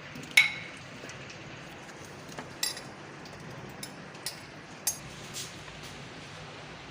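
Scattered light clinks and taps of a utensil and mango pieces against a blender jar as the mango is put in, about half a dozen in all; the loudest, a ringing clink about half a second in. The blender motor is not yet running.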